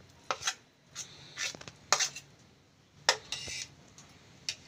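A spoon clinking and scraping against bowls as thick hung curd is scooped into a glass mixing bowl. The clinks come sharp and irregular, with a short scrape about three and a half seconds in.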